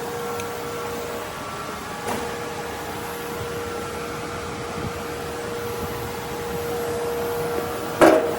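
A steady machine hum with a held tone, a light knock about two seconds in, and a loud ringing metal clank near the end.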